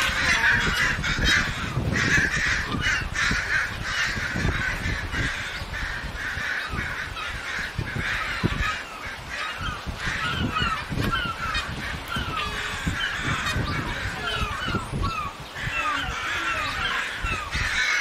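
Canada geese honking over and over in short falling calls in quick succession, busiest at the start and again near the end: alarm calls as a bald eagle attacks their goslings.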